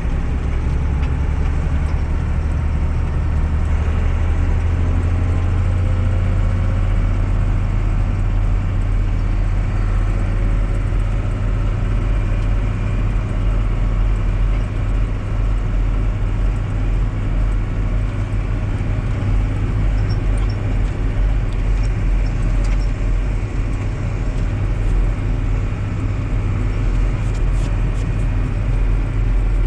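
Steady low rumble of engine and road noise inside a moving vehicle.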